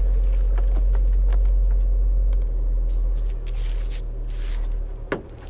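Low steady rumble of a car heard from inside the cabin, which falls away about halfway through. Then rustling as bags are handled and loaded through a car's rear door, with one sharp click near the end.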